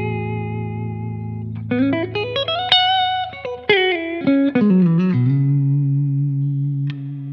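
Umeda UTE-Aldernico2, a Telecaster-style electric guitar with twin humbuckers, being played: a held chord rings out, then a quick rising run climbs to a high note held about three seconds in, a falling run comes back down, and a low note rings on to the end.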